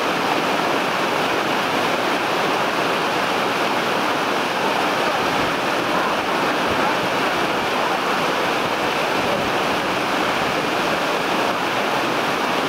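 Steady rush of whitewater rapids: river water pouring and churning over rocks.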